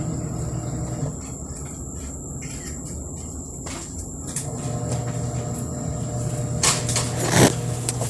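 A steady low hum with faint higher tones running under it, and a brief rustling noise about seven seconds in.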